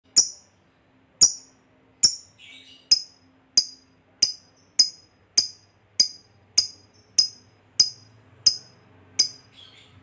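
Lovebird giving its 'ngetik' call: single sharp, clicking chip notes, about fourteen in ten seconds, coming a little faster as they go. Hobbyists use this call as bait to set other lovebirds singing.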